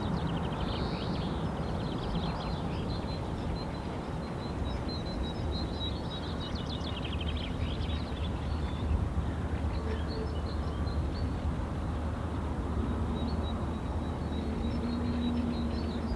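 Small birds chirping with short high calls, including a rapid trill around the middle, over a steady low background rumble.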